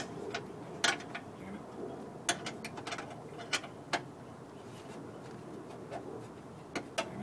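Scattered sharp metallic clicks and taps at uneven spacing as a hand tool works the window regulator's mounting bolts inside a Honda Odyssey's stripped door, with a quick run of clicks right at the end.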